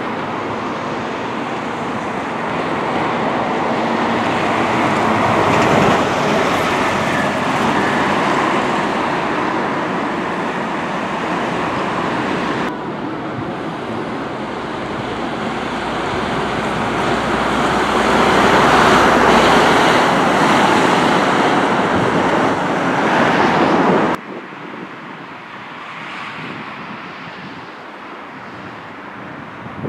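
Road traffic with double-decker buses passing close by, the engine and tyre noise swelling and fading twice. About three-quarters of the way through it drops suddenly to quieter wind and distant traffic.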